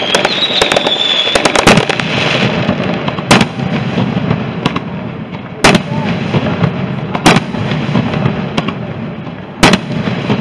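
Fireworks bursting: a quick run of sharp bangs in the first two seconds, then single loud bangs about every two seconds. A high whistle sounds in the first second.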